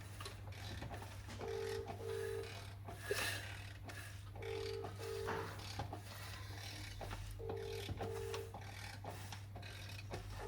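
A telephone ringing in the British double-ring pattern: two short beeps close together, repeating about every three seconds. Under it there is a steady low hum and faint clicks and rubbing.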